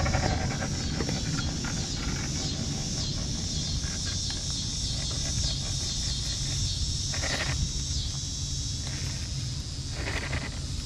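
Scale RC rock crawler creeping over tree roots, its electric motor and gears whirring in short bursts, about seven seconds in and again near the end. A steady high insect drone and a low rumble run underneath.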